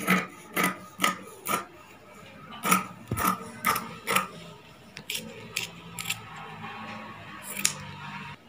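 Tailoring scissors snipping through blouse fabric, cutting a strip: about a dozen short, crisp cuts in runs of roughly two a second, with brief pauses between runs.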